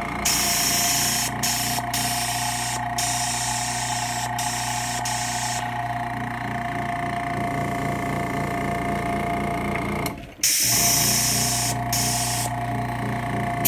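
Airbrush compressor running with a steady hum while air hisses through a Point Zero gravity-feed airbrush, the hiss starting and stopping again and again as the trigger is worked on a brush with a clogged nozzle. All of it cuts out for a moment about ten seconds in, then carries on.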